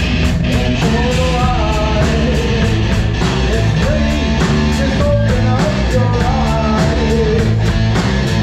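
Live rock band playing loud: electric guitar through Marshall amplifiers over a drum kit keeping a steady cymbal beat, with a melody line bending in pitch above it.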